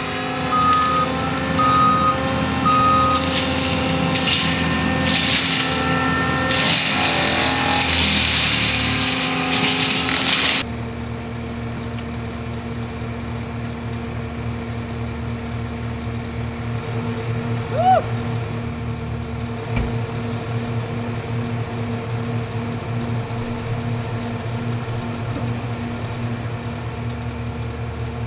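ASV 135 compact track loader running with its forestry mulcher, the engine holding a steady note under a loud, full-range machine noise, with three short reversing beeps near the start. About ten seconds in, the mulching noise cuts off sharply, leaving the diesel running steadily on its own.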